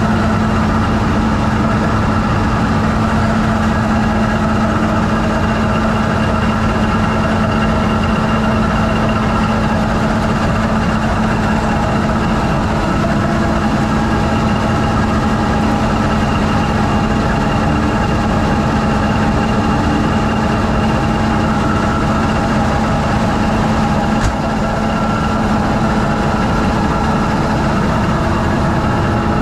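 MTU Friedrichshafen 20V4000 twenty-cylinder diesel prime mover of a CRRC SDA1 locomotive running steadily, heard from inside its engine room, with a strong steady hum.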